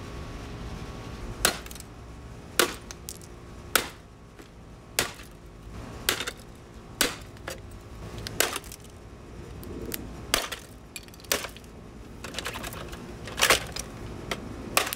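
Damaged Black & Decker blender base, still plugged in, with its motor running in a steady hum under sharp clicks about once a second.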